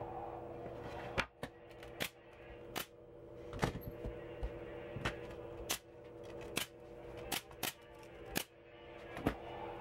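Pneumatic nail gun firing into a wooden frame: about a dozen sharp shots, roughly one a second, starting about a second in.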